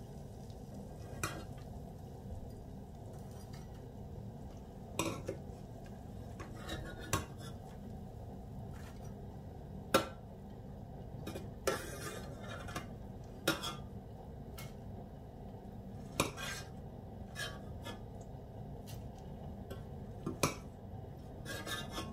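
A metal ladle clinking and scraping against a small stainless-steel saucepan while scooping fried boondi out of hot oil: a dozen or so separate clinks, spaced irregularly, the sharpest about ten seconds in.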